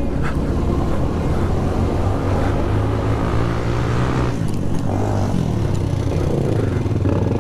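Motor vehicle engine running steadily, a low drone under a noisy rumble; the higher noise thins about four seconds in.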